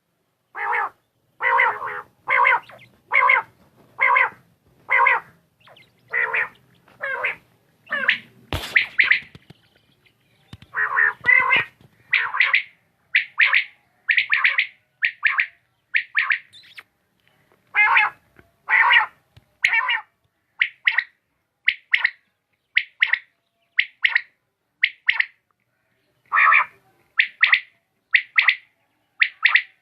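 Quail calling: a long run of short, sharp calls repeated about once a second, lower-pitched at first and higher and thinner later on. There is a single sharp click about eight and a half seconds in.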